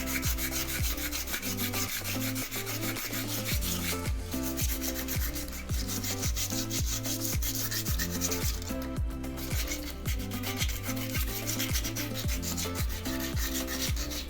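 Coarse 120-grit sandpaper rubbing back and forth over a wheel rim, a continuous scratchy hiss that briefly lets up a couple of times. Background music with a steady beat and bass line plays underneath.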